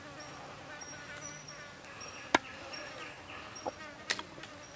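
Forest insects chirring, with a short high chirp repeating about twice a second. A few sharp knocks cut through, the loudest about two and a half seconds in.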